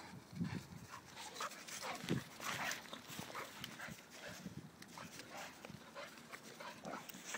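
Two dogs, an Alapaha bulldog and a blue Staffordshire bull terrier, play fighting: irregular panting, with a few short low sounds about half a second and two seconds in.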